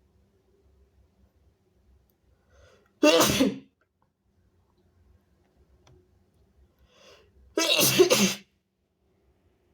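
A person sneezing hard twice, about four and a half seconds apart, each sneeze a sudden loud blast after a faint intake of breath; the second one lasts a little longer.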